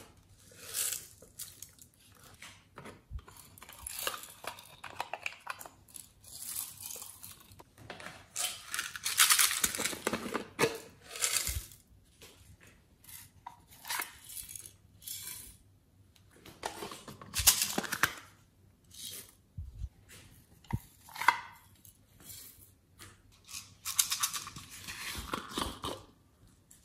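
Small plastic containers being handled: lids clicking and knocking as they open, and glitter and sequins rattling and pouring out of them onto slime, in irregular bursts with short pauses between.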